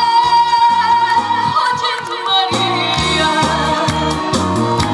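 A woman sings a Korean trot song through a microphone and PA over amplified accompaniment with bass and keyboard. She holds one long note for the first two and a half seconds, then carries on with shorter sung phrases.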